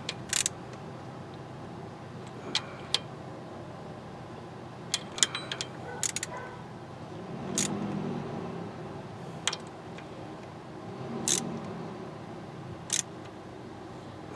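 Scattered sharp metallic clicks from a socket wrench being worked on the water-pump bolts threaded into the aluminum engine block. There are about a dozen clicks, some singly and some in quick clusters, over a low steady background.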